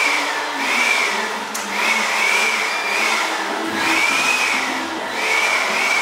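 Electric fan blowing steadily, a high motor whine in it wavering up and down about once a second.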